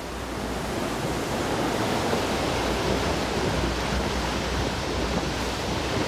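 Steady rush of the Seven Sisters waterfall, water falling down the fjord cliff and splashing below, heard as an even, unbroken noise.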